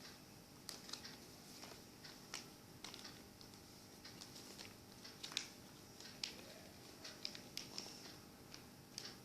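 Faint, irregular light taps and rustles of a paper sheet being folded and creased by hand.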